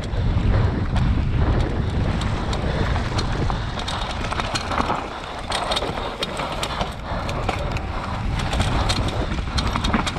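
Mountain bike riding fast down a rough enduro trail: wind rumbles on the helmet camera's microphone under tyre noise, with frequent sharp clicks and rattles from the bike over rocks and roots.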